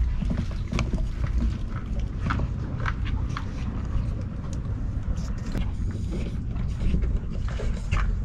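A camera rig being hoisted out of a concrete pit: scattered handling clicks and knocks over a steady low rumble on the microphone.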